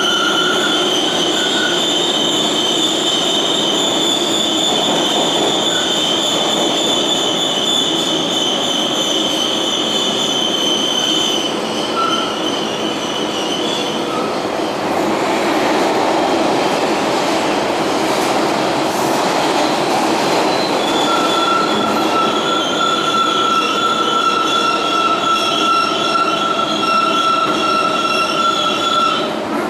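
Inside an R142A subway car running at speed through the tunnel: a steady rumble of wheels on rail, overlaid with a high, steady squeal that fades out about halfway through and returns for the last third.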